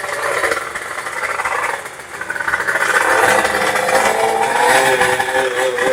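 Two-stroke underbone drag-bike engine being revved, its pitch climbing about halfway through and then held high.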